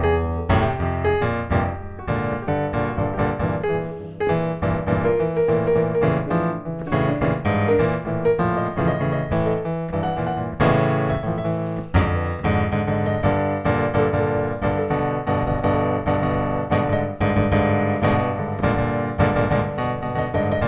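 Background piano music, notes played continuously at an even pace.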